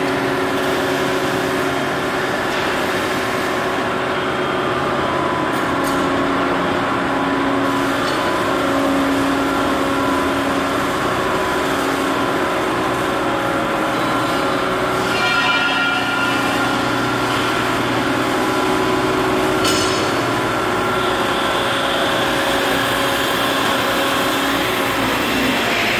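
Electro-hydraulic power unit of a scissor car lift, an electric motor driving a hydraulic pump, running steadily as it raises the loaded platform. A brief high sound comes about fifteen seconds in and a sharp click about twenty seconds in.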